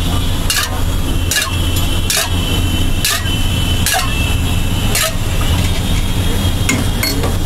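Refined oil dabbed from a ladle onto a rava dosa on a hot griddle, giving a short sizzle about once a second over a steady low rumble.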